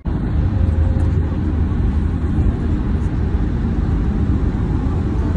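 Steady road noise inside a moving car: a heavy low rumble with a hiss of tyres and wind, starting abruptly.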